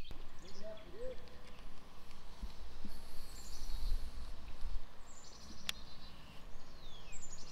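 Birds chirping over a steady low rumble, with one sharp click in the second half.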